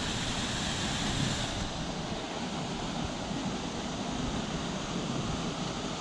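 Waterfall splashing down, a steady, even rush of falling water.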